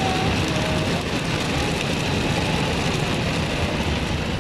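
Automatic car wash equipment working on the car, heard from inside the cabin: a loud, steady, dense washing noise.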